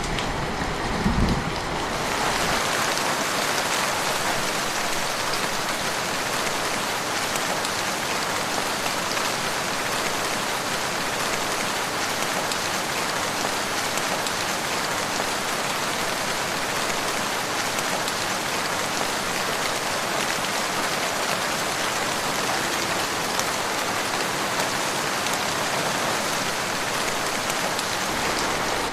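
Steady, heavy rain falling. There is a brief low rumble about a second in, after which the rain runs on evenly.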